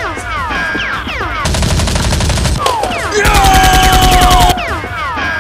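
Movie-style gunfire sound effects: two bursts of rapid automatic fire, the second louder and about a second and a half long, among repeated short falling whistling tones.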